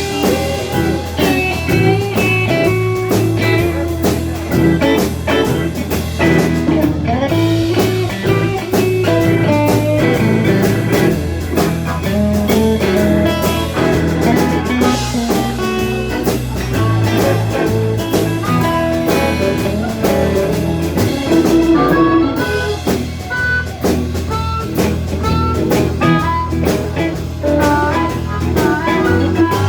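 Blues band playing an instrumental passage: guitar notes over bass and drum kit, with no singing.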